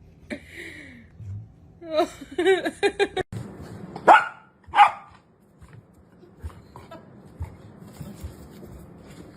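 Dog vocalising: a quick run of short high-pitched yelps, then two loud barks less than a second apart.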